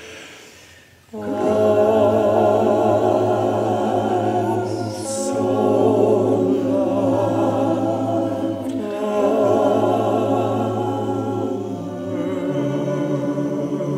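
Choir singing in sustained, wavering notes. There is a short break about a second in before the next phrase begins.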